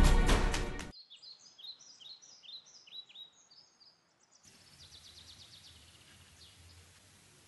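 Music fading out within the first second, then birds chirping: many short, quick chirps that swoop up and down in pitch over a faint outdoor hiss. About halfway through, a low steady hum of background noise comes in under the chirps.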